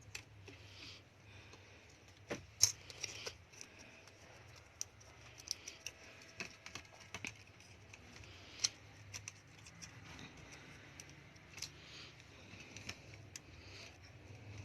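Scattered light clicks and taps of small tools and parts being handled while a mobile phone is worked on at a repair bench, with a faint low hum underneath.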